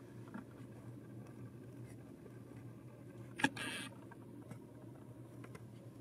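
Camera handling noise: one sharp click followed by a short rustle about three and a half seconds in, over a faint steady low hum.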